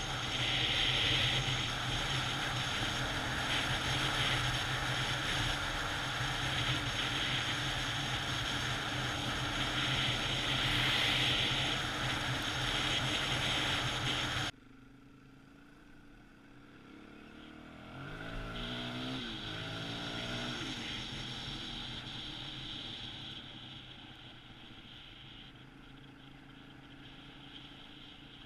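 Dual-sport motorcycle ridden at road speed: steady engine drone under loud wind noise. About halfway through it cuts abruptly to a quieter stretch where the engine's revs climb and fall a few times, then fade down.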